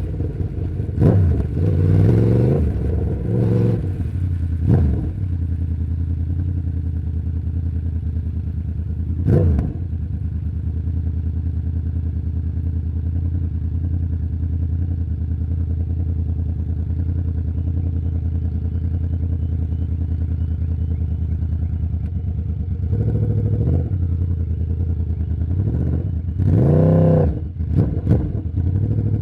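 2011 Yamaha YZF-R1's crossplane inline-four, on its stock exhaust, idling steadily and revved in short throttle blips: several near the start, one about nine seconds in, then a cluster of quick blips near the end, with a long stretch of even idle in between.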